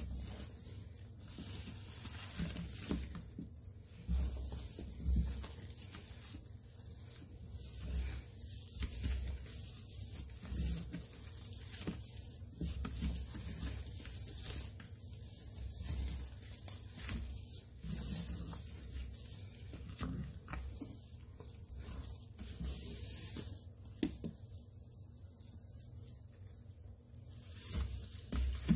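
Rubber-gloved hands kneading, squeezing and pulling apart a thick wet paste of Comet cleaning powder mixed with Fabuloso and Ariel detergent in a stainless steel sink. The sound is an uneven run of wet squishing with soft crackles and dull low thumps.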